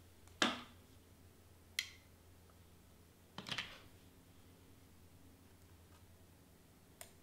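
Hands handling small paper butterflies and pressing them onto cardstock: a few short paper rustles and taps, the loudest about half a second in and a quick cluster halfway through, over a faint low hum.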